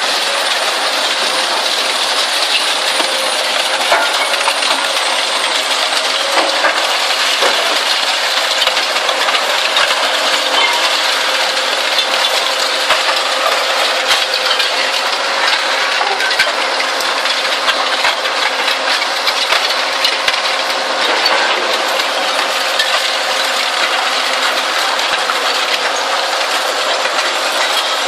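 Zato Blue Devil twin-shaft shear shredder running, with a continuous metallic clatter of shredded scrap steel pouring off its discharge chute onto the pile over a steady machine hum.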